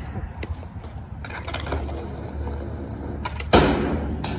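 Skateboard wheels rolling with a steady low rumble, then a single loud clack of the board striking the ramp about three and a half seconds in.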